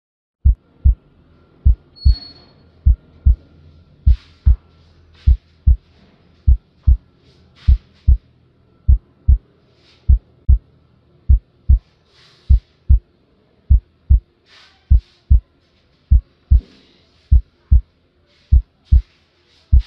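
Heartbeat sound effect: a low double thump, lub-dub, repeating steadily about once every 1.2 seconds.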